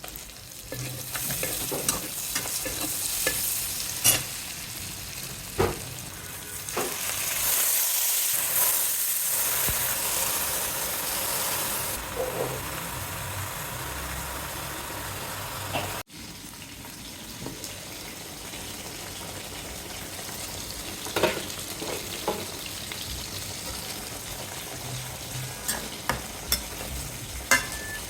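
Food frying in hot oil in a pan, a steady sizzle with scattered clicks and scrapes of a spatula stirring it. The sizzle cuts off abruptly about halfway through and comes back more quietly.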